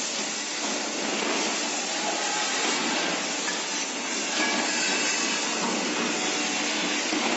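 Hydraulic pipe bending machine running: a steady, even hiss of machinery with a few faint whining tones and no distinct strokes.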